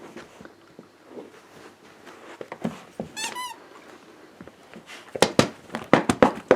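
A dog chewing and shaking a squeaky toy, its squeaker sounding once in a drawn-out, wavering squeak about three seconds in, then in a quick run of short, sharp squeaks near the end.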